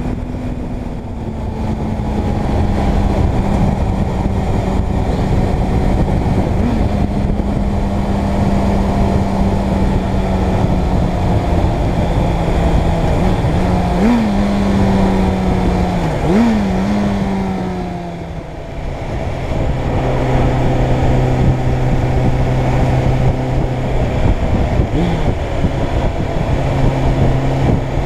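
Suzuki Bandit 600's inline-four engine running under way, with wind and road noise. Its note falls slowly as the bike slows, jumping up briefly in pitch a few times, then settles to a lower, steady note after a short dip about two-thirds of the way in.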